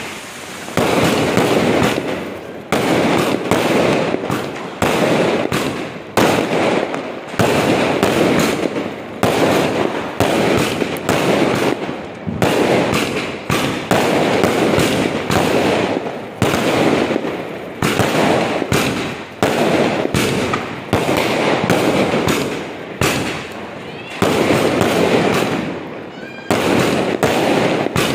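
Aerial fireworks bursting overhead one after another, a sharp bang about every one to two seconds. Each bang trails off in a fading crackle.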